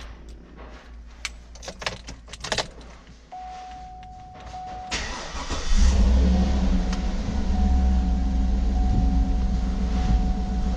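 Keys jangle and a few clicks, then a steady chime sounds before the 2008 GMC Yukon Denali's 6.2-litre V8 cranks and starts about five seconds in and settles into a steady idle, with the chime tone continuing over it. The engine is started so the brake pedal can be checked for pressure after the pad change.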